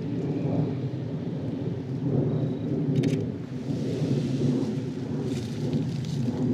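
Wind buffeting a clip-on wireless microphone: a steady low rumble that swells and eases. There is a brief click about three seconds in and some crackling rustle near the end.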